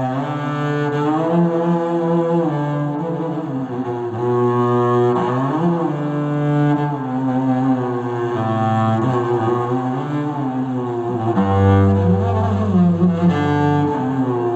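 Solo cello, bowed, playing an improvised taksim in the Turkish makam Uşşak: a continuous melodic line with notes sliding from one pitch to the next. Near the end a low note sounds beneath the melody for about two seconds.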